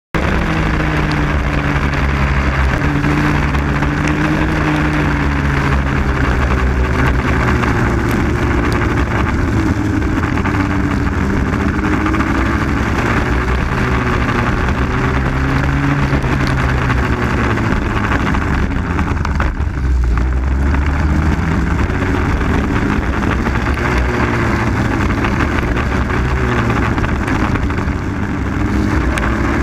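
Onboard sound of a Raket 120 single-cylinder two-stroke kart engine at racing speed, its pitch rising and falling again and again as the driver accelerates and lifts for corners, over a steady rush of wind noise. About two-thirds of the way through the revs sink low for a moment before climbing again.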